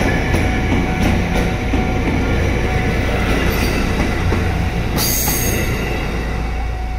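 JR East Series E257 electric train rolling slowly past close by as it pulls into the station, with a steady heavy rumble, a thin steady wheel squeal and a few clicks of wheels over rail joints. A short hiss of air comes about five seconds in.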